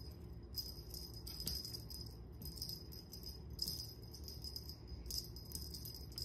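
Cat wand toy jingling as it is waved through the air, in short tinkly bursts about once a second.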